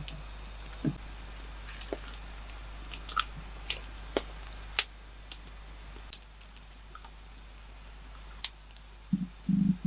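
Campfire crackling, with irregular sharp pops and snaps. A few louder, dull knocks come near the end.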